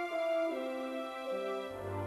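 Slow instrumental music of long held notes, the line stepping downward. A deep bass note comes in near the end.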